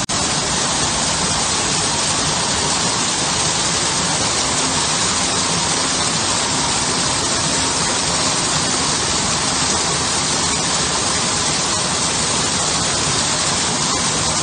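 Small stone garden waterfall: water pouring steadily over the rocks into a shallow pool, a constant even rush. There is a split-second dropout right at the start.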